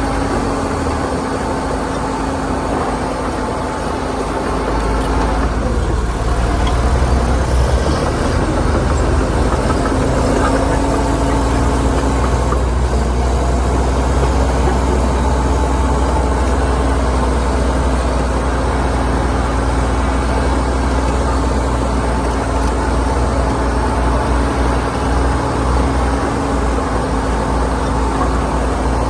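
Heavy earthmoving machinery at work, with a bulldozer and dump trucks running. It makes a steady, deep engine drone with a constant hum, and the drone grows louder about five seconds in.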